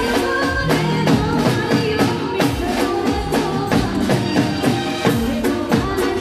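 Live Gujarati folk band playing garba music through the stage sound system, with a steady, fast drum beat under a melody line.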